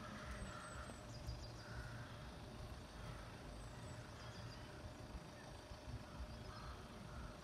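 Faint outdoor background: a steady low rumble like wind on the microphone, with faint intermittent calls from animals or birds.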